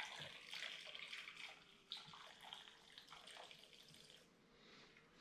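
Two-stroke petrol mix being poured into a demolition saw's open crankcase, a faint trickle of liquid for about four seconds with a few small knocks. It is flushing out shavings from the broken piston ring.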